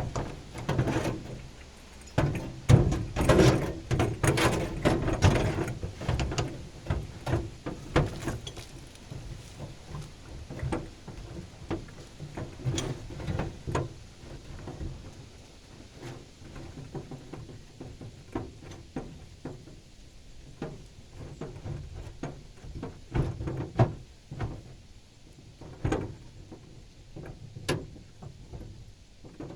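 Clicks, knocks and light rattles of metal pipe fittings and tools being handled, dense and loud for the first few seconds, then sparser.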